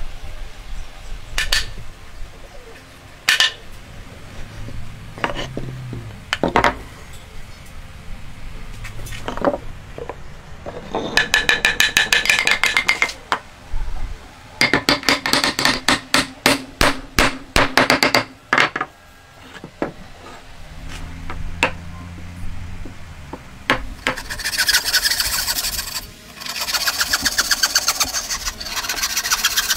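Hand woodworking sounds: several separate knocks on wood, then runs of quick back-and-forth strokes. Near the end a fine-toothed hand saw is cutting across a hardwood block.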